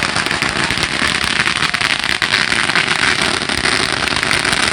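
Firecrackers going off in a dense, rapid string of many small overlapping bangs and crackles, loud and unbroken.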